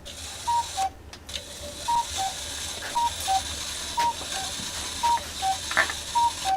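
Cuckoo clock calling "cu-ckoo" six times, about once a second, each a higher whistle-pipe note falling to a lower one. The clock's gear train whirs and rattles underneath, with a brief clatter near the end.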